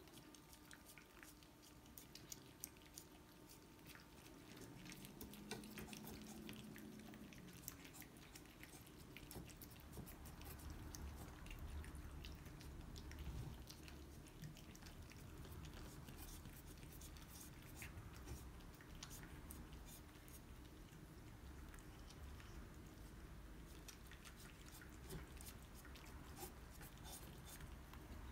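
Cats licking and lapping a snack from ceramic bowls: faint, quick wet clicks of tongues, very quiet throughout.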